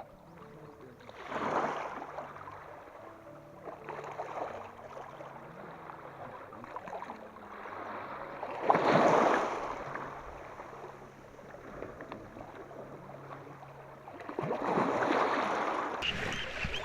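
Sea waves washing onto the shore, coming in as rising and falling rushes about every few seconds; the loudest surge is about nine seconds in.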